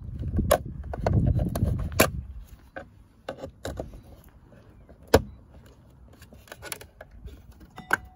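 Sharp plastic clicks and knocks from a flat screwdriver prising at the clips of a Ford Focus wing mirror cover as the cover is worked loose. The first two seconds or so carry a low rumbling handling noise under the clicks, and the loudest single click comes about five seconds in.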